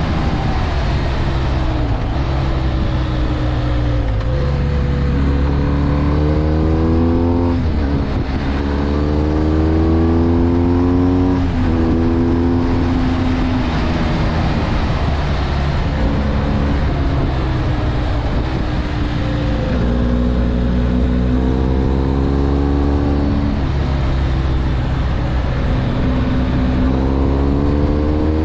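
BMW R 1250 GS boxer-twin engine accelerating and shifting up through the gears again and again. Its pitch climbs, then drops at each shift, over a steady low wind and road rumble.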